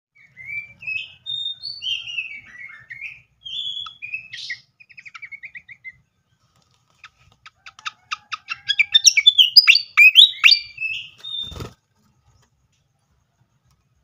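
Malaysian pied fantail song: squeaky whistled notes and a short trill, then after a brief pause a louder, quicker run of sharp chattering notes. A short thump comes near the end.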